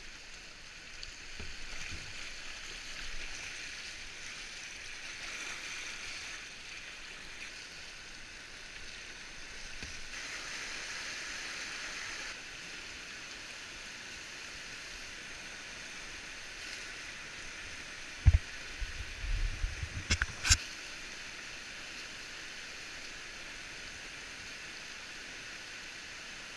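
River rapids: whitewater rushing over rocks, a steady hiss heard from a kayak in the current. About two-thirds of the way through come a few loud, dull thumps and a short rumble, ending in a sharp knock.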